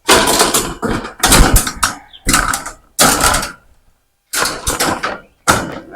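Welded-wire hog panel scraping and rattling against metal T-posts as it is pushed along, in about six rough bursts with short pauses between them.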